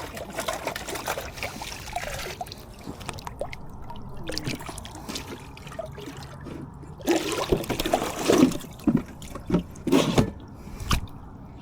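Water splashing and trickling at the lake's edge, then a run of loud knocks and scuffs in the second half.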